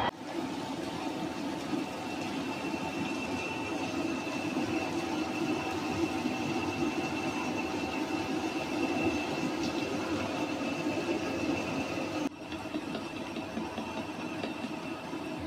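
CNC machining centre milling a steel workpiece under a coolant spray: steady machine and cutting noise with a thin, high steady whine. It drops a little in level about three-quarters of the way through.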